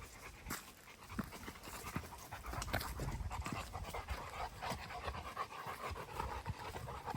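A dog panting, a quick run of short breaths that gets louder about two seconds in.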